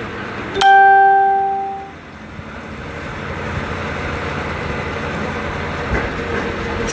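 A single bright chime-like ring about half a second in that fades over about a second. It is followed by the steady drone of the truck-mounted drilling rig's machinery running.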